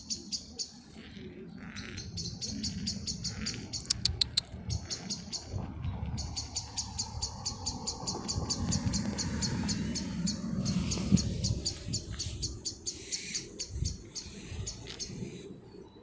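A bird's rapid, high-pitched chirping, about eight chirps a second, running on for several seconds with a short break about five seconds in, over low rustling.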